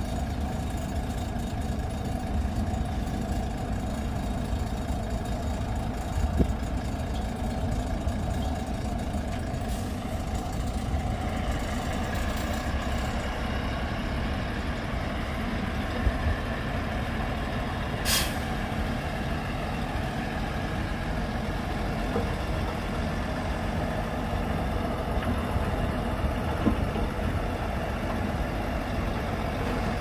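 Heavy diesel dump truck engine running steadily at low revs, with one short air-brake hiss a little past halfway.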